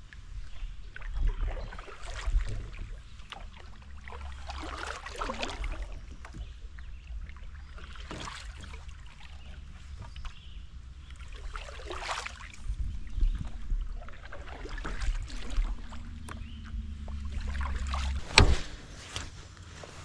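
Water swishing and splashing around a fishing kayak on a creek, over a low steady rumble, with a sharp knock against the boat about eighteen seconds in.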